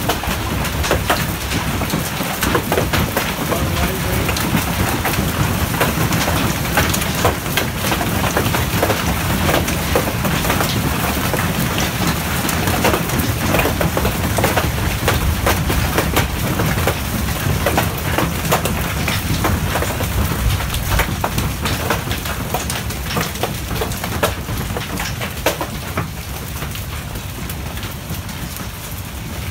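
Golf-ball-size hail pelting down with heavy rain: a dense clatter of hard, irregular hits over a steady hiss, easing slightly near the end.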